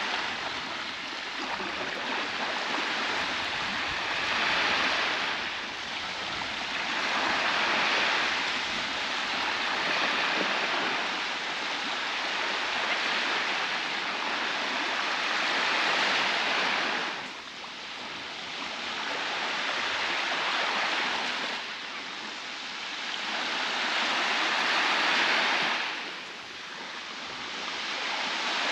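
Baltic Sea waves breaking and washing up a beach: a continuous hiss of surf that swells and eases every few seconds, dropping into brief lulls twice.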